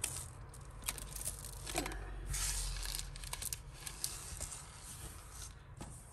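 Plastic bags rustling and crinkling while costume jewellery is handled, with a scatter of small clicks from pieces knocking together and a longer rustle about two seconds in.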